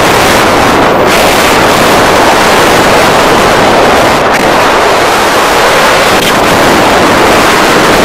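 Loud, steady rush of wind across the camera's microphone from the airflow of a paraglider in flight.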